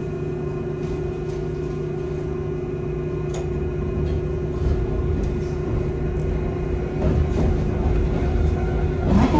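Inside a Hankai Tramway tram's cab: a steady electrical hum over a low running rumble, growing louder after about seven seconds, with a few light clicks and a sharp clack near the end.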